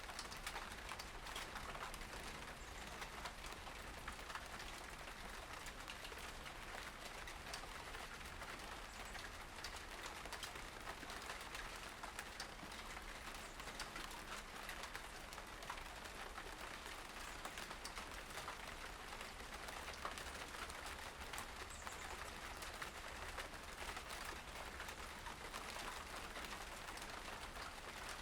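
Steady outdoor ambience: an even hiss sprinkled with many small ticks, with a brief faint bird chirp about two-thirds of the way through.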